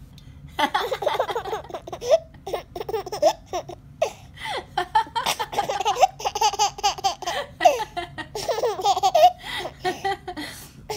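A baby laughing in repeated fits of short bursts, starting about half a second in and going on with brief breaks.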